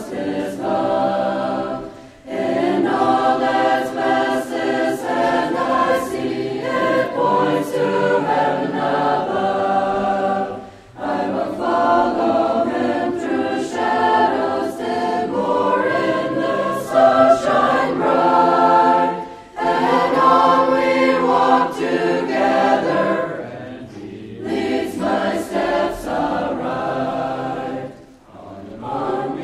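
Choir singing a hymn in long phrases, with a short break between phrases about every eight to nine seconds.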